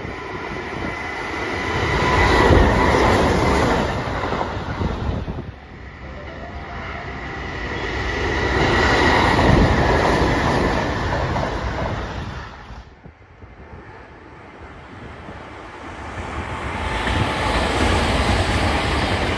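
Sanyo Electric Railway electric trains passing at speed, three passes one after another. Each builds up as the train nears, and the first two break off abruptly. A faint steady high tone runs through the first pass.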